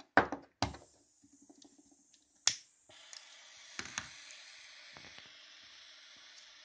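Small handheld butane torch being lit: a few sharp clicks as it is handled and its igniter snaps, the sharpest about two and a half seconds in. Then the flame burns with a steady hiss.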